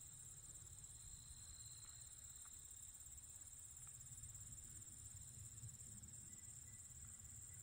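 Faint, steady chorus of crickets trilling high and continuously, over a low rumble.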